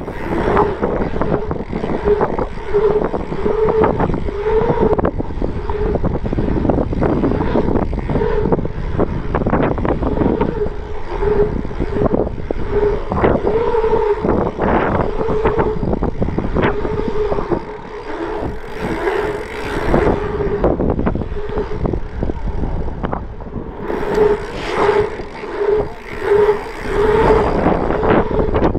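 Strong gusting wind buffeting the microphone, with a bike's tyres humming on asphalt, the hum rising and falling in short surges as the bike pumps over the rollers.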